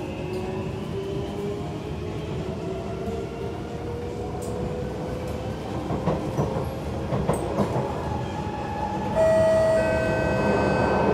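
Kawasaki C151 electric metro train picking up speed: the traction motors' whine climbs slowly in pitch over the running noise of the wheels, with a few clacks about six to eight seconds in. Near the end a louder steady tone comes in suddenly.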